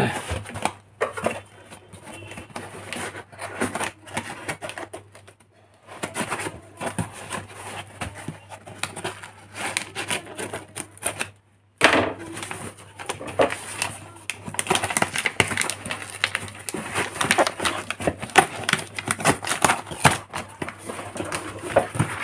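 A cardboard shipping box being torn and pulled open by hand: irregular crackling, ripping and scraping of cardboard and packing tape. It stops dead for a moment just before twelve seconds in, then starts again sharply.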